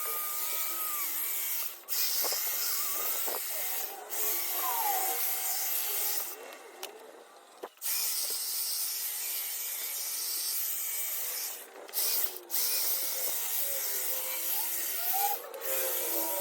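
Ego battery-powered hedge trimmer running and cutting through hedge foliage, a steady high-pitched buzz that stops and restarts several times, with one longer pause about two-thirds of the way through the first half.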